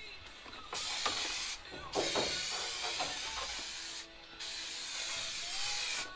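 Aerosol can of spray adhesive hissing in three long bursts with short breaks between, the longest about two seconds.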